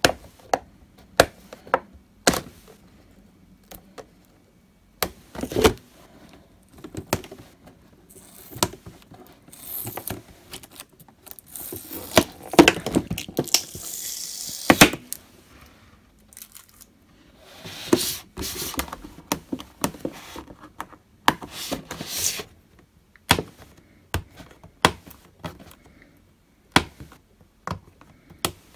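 Fingernails picking and peeling stickers off a clear plastic mug box: scattered sharp clicks and taps of nails on flexing plastic, with longer scratchy rustling stretches in the middle.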